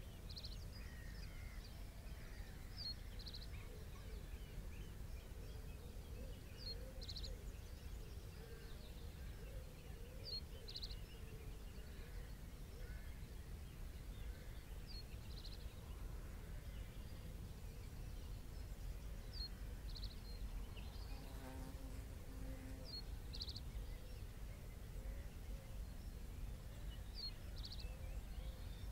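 Quiet estuary ambience: a steady low rumble, with a short high call repeating about every four seconds. Each call is a thin sharp note followed by a brief buzz.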